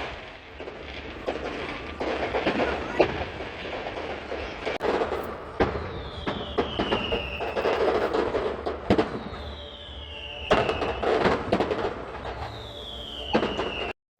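Fireworks display: a run of bangs and crackles, with three whistling fireworks, each a falling whistle of about a second, spaced about three seconds apart. The sound cuts off briefly near the end.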